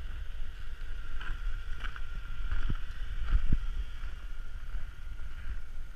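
Low rumbling wind noise on the microphone, with a faint steady high whine behind it and a couple of soft knocks around the middle.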